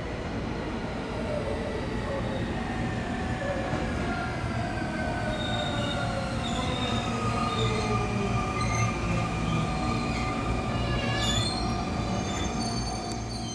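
Sotetsu electric train pulling into the platform and braking: its motor whine falls steadily in pitch over a low rumble. Brakes squeal in short high tones as it slows near the end.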